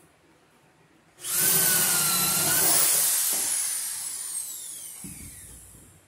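Electric drill starting up about a second in and running hard for about two seconds, boring a hole through a wooden wall stud for cable, then its motor winding down with a long falling whine once the trigger is let go. A low thump near the end.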